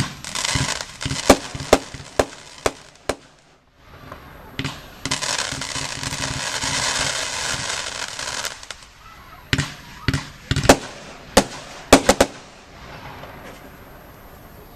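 Consumer fireworks going off: a bang, then a quick run of sharp reports, about three seconds of dense rushing noise after a short lull, and then another series of sharp bangs.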